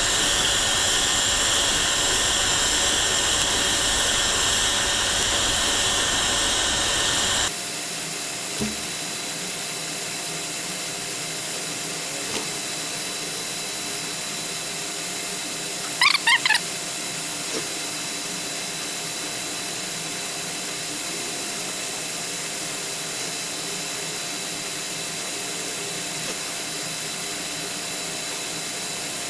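TIG welding arc on stainless steel pipe: a steady hiss with a thin constant whine, stepping down in level about a third of the way in. A brief high squeak stands out about halfway through.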